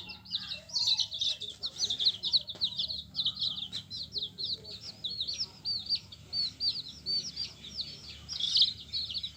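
A group of domestic chicks peeping: many short, high chirps overlapping, several a second, over a faint steady low hum.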